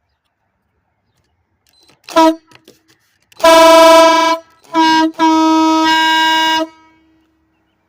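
Air horn blasting four times, one steady note each time: a short toot, a blast of about a second, another short toot, then a longer blast of about a second and a half. Loud, with silence between the blasts.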